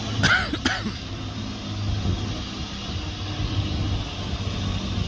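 An engine running steadily with a low hum. A short, sharper sound with a gliding pitch comes about a quarter-second in.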